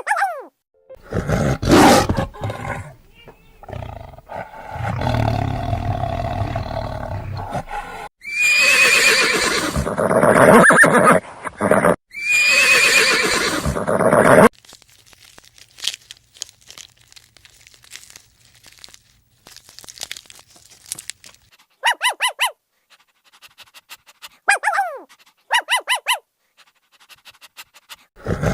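A series of different animal calls, one clip after another: two long loud calls near the middle, then short calls in quick clusters near the end.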